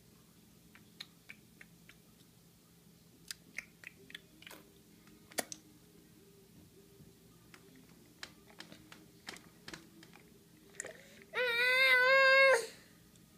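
Small clicks and mouth smacks from a baby taking water from a spoon, then near the end one loud, high-pitched, slightly wavering baby vocal sound lasting about a second.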